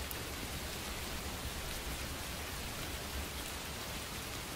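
Steady rain falling: an even hiss with the odd faint drop tick.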